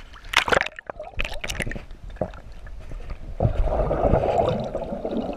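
Water splashing against a camera held at the lake surface, then, from about three and a half seconds in, the muffled rush and bubbling of water with the camera submerged.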